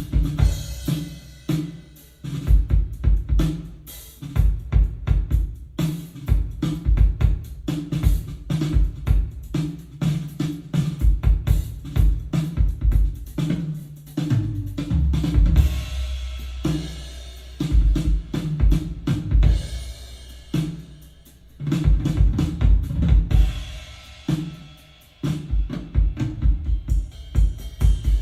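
Drum-heavy music with a full drum kit (kick, snare, cymbals and hi-hat), played back through a Yamaha YSP-2700 sound projector. The kick-drum hits come in dense rhythmic runs broken by short pauses, and a long deep bass note is held about halfway through.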